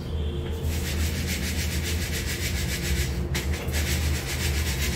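Puffed rice (muri) being shaken in a plastic sieve, a rapid, even rhythmic rattling hiss of the dry grains, with a short break about three seconds in: the rice is being sifted to shake out sand.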